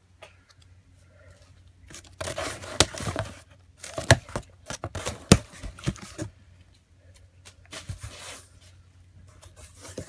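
Scissors cutting through the packing tape on a cardboard box, in several tearing, scraping passes with a few sharp snips, with short pauses between them.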